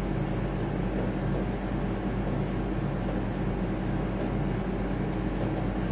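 Steady background hum with an even hiss, unchanging throughout: constant room or equipment noise with no other events.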